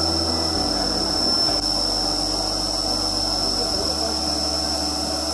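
CNC vertical machining center milling an aluminium part: a steady high spindle whine with cutting noise. Under it, background music with low notes that change every second or two.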